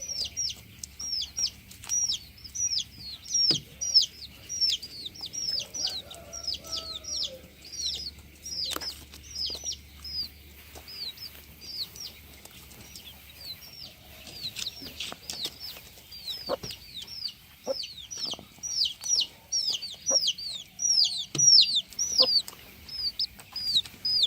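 Broiler chicks peeping as a flock: a constant stream of short, high, downward-sliding peeps, several a second, with a few sharp knocks now and then.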